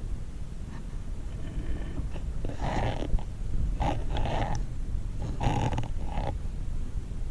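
A spearfisherman breathing hard through a snorkel: three rasping breaths over a steady low rumble of water.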